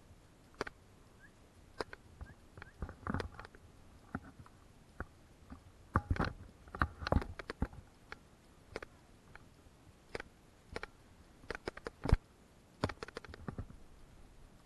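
Footsteps on narrow wooden planks and twigs, with irregular knocks, crackles and crunches coming in clusters, the loudest a sharp snap a little after 12 seconds in.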